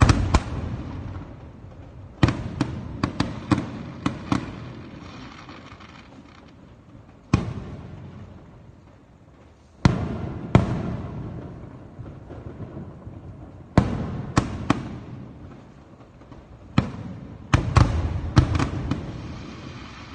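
Aerial firework shells bursting: sharp bangs, some single and some in quick clusters of several, each fading in a long low rumble. The densest run of bangs comes near the end.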